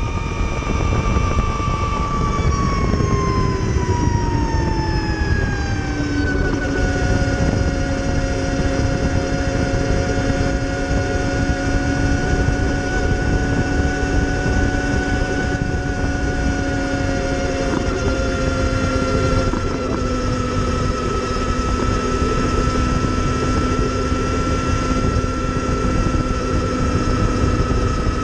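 Energica Ego electric motorcycle's motor and drivetrain whining over wind and road noise. The whine falls in pitch from about two to six seconds in as the bike slows, then holds steady, dipping slightly once more later.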